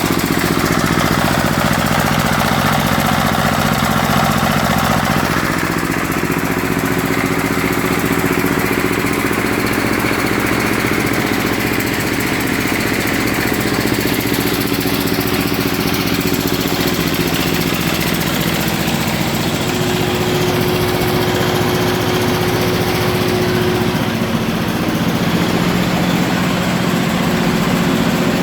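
A 23 hp engine running steadily, driving a simple rice mill that polishes paddy grain, with a continuous machine hum and several steady tones throughout.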